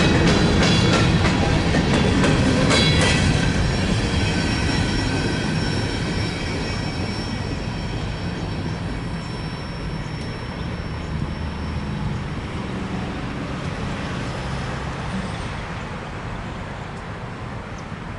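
Empty coal hopper cars of a freight train rolling past and moving away. Wheels clack over rail joints in the first few seconds, with a thin high wheel squeal. The rumble then fades steadily as the end of the train recedes.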